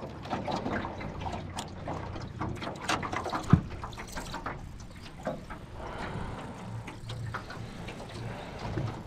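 Water sloshing and splashing, with scattered small clicks and knocks and one sharp thump about three and a half seconds in.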